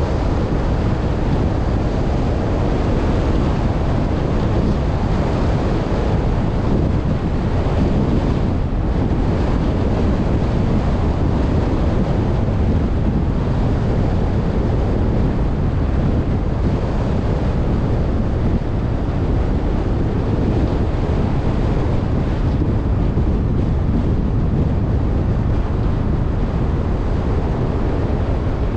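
Steady road noise from a car driving along: tyre roar on the asphalt mixed with wind rushing over the camera microphone, even and unbroken.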